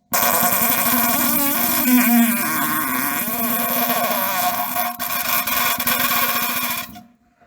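A long fart of about seven seconds: a rapid flutter with a steady pitched tone, the pitch wavering about two seconds in. It starts and stops abruptly.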